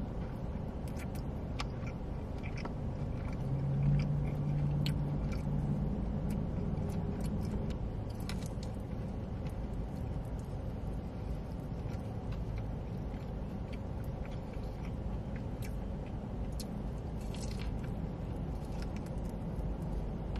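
A person chewing and biting food close to the microphone: scattered short wet mouth clicks over a steady low rumble, with a brief low hum about four seconds in.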